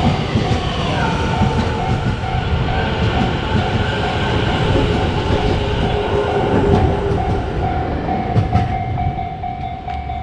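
A Japanese level crossing's warning bell ringing in quick repeated pulses, about two a second, over the loud rumble and wheel clatter of an electric train running past. Near the end the bell's pulses run together into a steadier tone.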